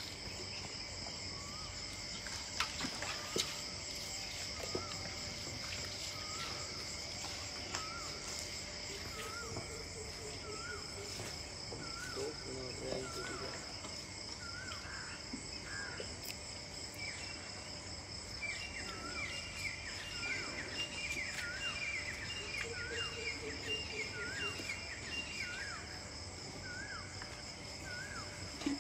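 Outdoor dawn ambience: a steady high chirring of crickets or other insects, with a bird repeating short hooked call notes about once a second and a quicker run of calls about two-thirds of the way through.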